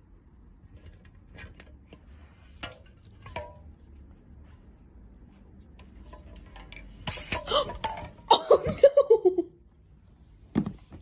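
Aluminium drink cans clinking and tapping as a cat noses and paws them over, with louder clattering about seven seconds in. A person laughs in a short run of quick bursts just after the clatter.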